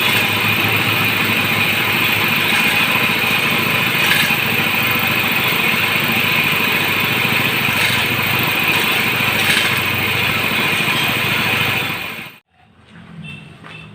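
Engine of a well-drilling machine running steadily and loudly, stopping suddenly near the end.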